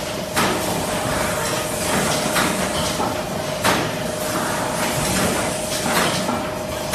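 Automatic cup fill-and-seal machine running: a steady mechanical hum with a faint held tone, and sharp clacks of the machine's moving parts about four times, every second or two, as it indexes the cup plates through its cycle.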